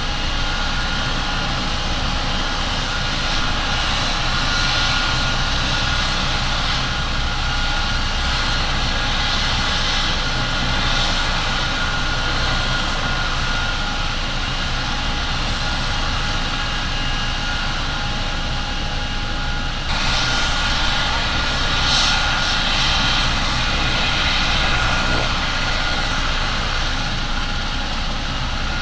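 Medical helicopter's turbine engines and rotor running steadily, with a constant high turbine whine over the rotor noise; the sound grows louder and hissier about twenty seconds in.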